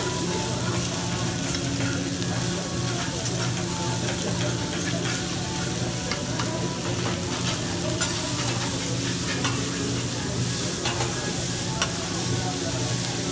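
Diced vegetables sizzling on a hot steel teppanyaki griddle as metal spatulas stir and scrape them, with a few sharp clicks of spatula on steel. A steady low hum runs underneath.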